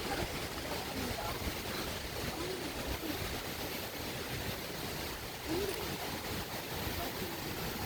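Steady rushing noise with gusty low rumbling, typical of wind buffeting the microphone.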